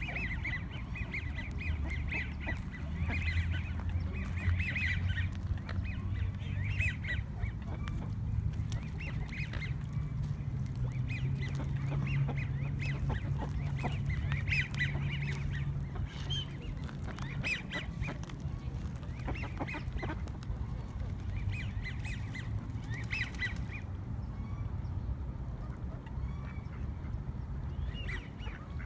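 Mallard ducks calling on the water in short bursts of quacks that come every few seconds, over a steady low rumble.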